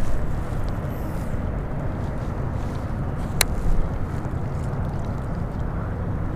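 Steady low wind rumble on the microphone with the slosh of water around a wading angler, and one sharp click about halfway through.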